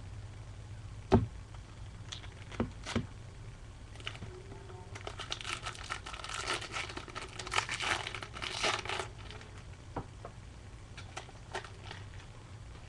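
A few sharp knocks, the loudest about a second in, then several seconds of crinkling and tearing as a football-card pack's wrapper is torn open and crumpled, over a steady low hum.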